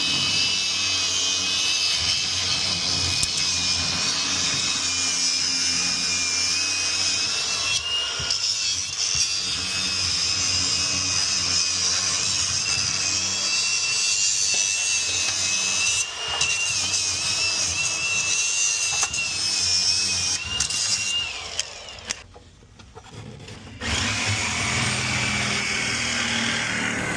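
Power drill running with a steady whine that wavers slightly in pitch while backing out screws from a boiler burner's side panel. It cuts out for about two seconds near the end, then starts again.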